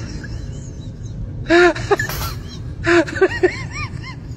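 A person's voice in two short bursts of high, rising-and-falling sounds, over a steady low hum.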